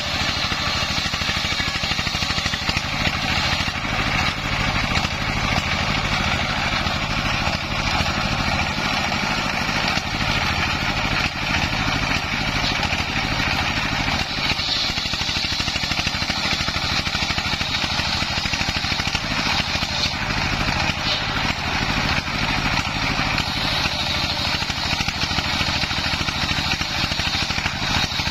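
Single-cylinder stationary diesel engine running steadily, belt-driving a homemade circular sawbench as its blade rips waru wood into rafters. The cutting adds a brighter whine over the engine about halfway through and again near the end.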